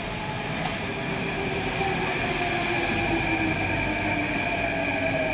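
Metro train pulling into the station, its motor whine slowly falling in pitch as it slows, over a steady rumble and a high steady whine.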